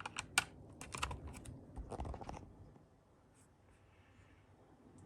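Small sharp clicks and taps of a USB cable being plugged into a computer and the device being handled, about a dozen in the first two and a half seconds, then stopping.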